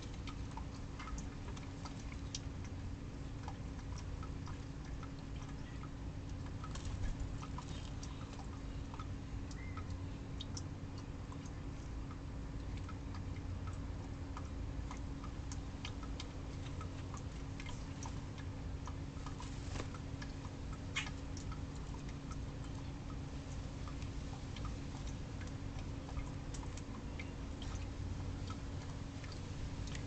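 Outdoor ambience: a steady low hum with many scattered faint clicks and ticks, a slightly louder click about a quarter of the way through.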